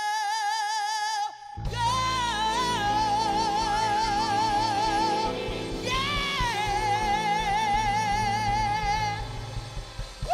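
Woman singing long held notes with wide vibrato, alone at first; about a second and a half in, the live band comes in under her with drums and bass, closing out the song with her sustained final notes.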